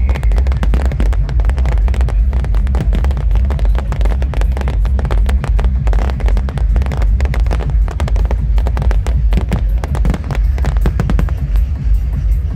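Fireworks bursting and crackling in quick, dense succession over loud, bass-heavy music.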